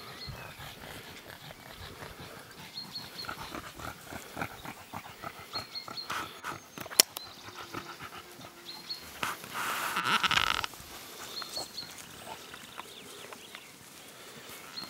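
Six-week-old Staffordshire bull terrier puppies squealing and yapping in short repeated bursts as they play-fight with an adult staffie, loudest about ten seconds in. A single sharp click comes about seven seconds in.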